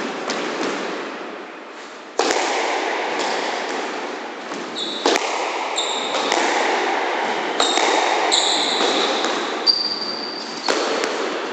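A squash rally in the court: the ball is struck by rackets and cracks off the walls about once a second, each hit ringing in the hard-walled court. Sneakers squeak in short high chirps on the wooden floor as the players lunge and turn.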